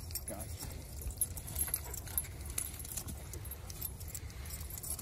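Dog collar tags jingling with many small light clinks as a dog moves about, over a steady low rumble.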